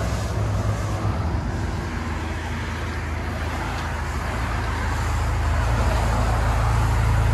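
2016 Chevy Malibu's turbocharged four-cylinder idling through a muffler-deleted dual exhaust, a steady low drone. It gets gradually louder as the microphone nears the tailpipes.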